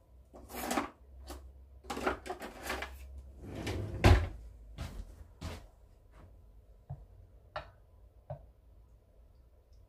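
Kitchen drawers and cupboards opened and shut while a spatula is fetched: a run of knocks and clatters, the loudest about four seconds in, then a few light clicks.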